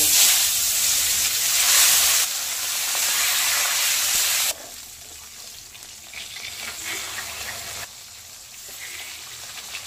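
Marinated rui fish pieces frying in hot oil in a kadai: a loud sizzle that drops abruptly to a quieter, steady sizzle about four and a half seconds in, with a spatula moving the pieces in the pan.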